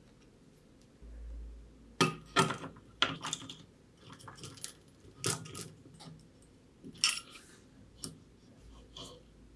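Metal parts clinking and tapping as DC motors, the steel mounting plate and the aluminium frame of the sander are handled and fitted together: an irregular string of sharp clicks and knocks that begins about two seconds in.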